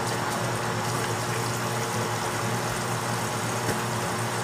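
A running appliance motor: a steady machine hum with a hiss over it, switched on about two seconds earlier and holding level.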